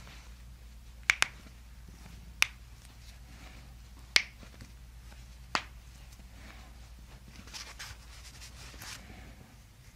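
Toe joints cracking as they are manipulated in a chiropractic foot adjustment: five sharp pops, a quick pair about a second in, then single pops roughly every second and a half. Soft rustling of hands on the foot follows near the end.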